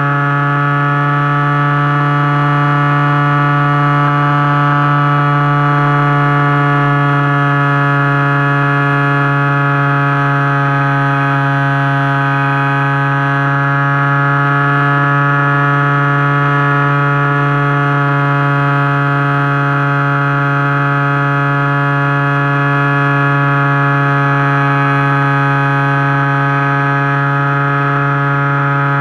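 Turnigy G10 brushless outrunner motor turning a 10x6 propeller on an FPV model plane in flight, heard from the camera on board: a steady, loud propeller drone that wavers slightly in pitch as the throttle and airspeed shift.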